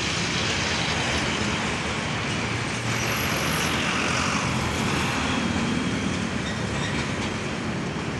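Steady road traffic noise from passing vehicles, among them a cab-over tractor truck hauling a shipping container, with cars and motorcycles.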